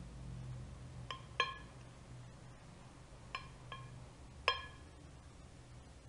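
Metal spoon clinking against the side of a glass bowl as it works through a chunky diced filling: five short clinks, each with a brief glassy ring, in two pairs and then a single loudest one about three-quarters of the way through.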